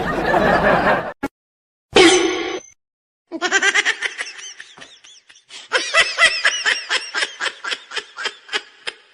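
A person laughing in a long run of short rhythmic pulses, about three a second, fading toward the end, after two short bursts of sound in the first seconds.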